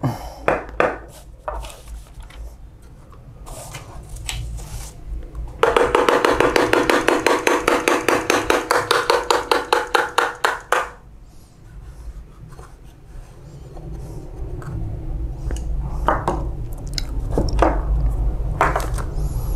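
Plastic parts of a copier's waste-toner unit being handled, with scattered clicks and knocks. About five seconds in comes a loud, rapid rattle of about seven clicks a second over a steady hum, which stops suddenly around five seconds later.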